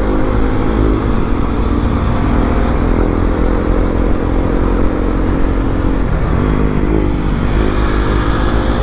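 Motorcycle engine running at a steady cruise of about 60 km/h, its note half buried in heavy wind and road noise on the microphone.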